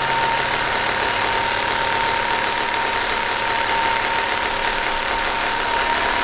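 Theragun PRO percussion massager running steadily at 2200 percussions per minute: an even motor hum with a constant high tone. At this speed the PRO makes a rattling sound, which the owner isn't sure is a fault of this unit or just wear from use.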